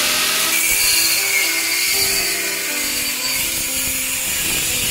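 Handheld power tool working on metal: a loud, steady high hiss, joined about half a second in by a steady high whine, over background music.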